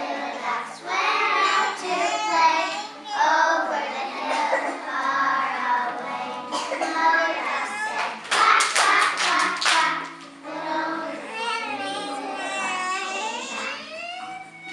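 A class of young kindergarten children singing a song together, with a quick run of claps about halfway through.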